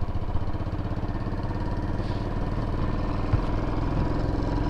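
Royal Enfield Bullet motorcycle's single-cylinder engine running with a steady, even beat. There is a short click about three seconds in.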